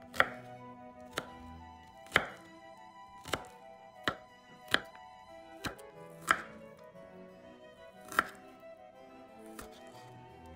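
Kitchen knife chopping food on a cutting board: about ten separate, unevenly spaced cuts, roughly one a second, each a sharp knock of the blade meeting the board. Soft background music plays underneath.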